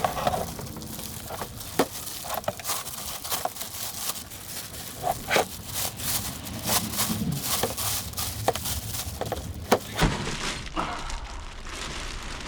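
Plastic packaging being opened and handled, crinkling and crackling with many irregular sharp snaps and clicks.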